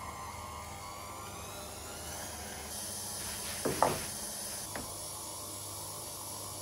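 Electric pasta sheeter on a stand mixer running with a steady motor hum and whine as the egg pasta is rolled. About four seconds in there is a short thump and rustle as a pasta sheet is laid on the wooden board, then a small click.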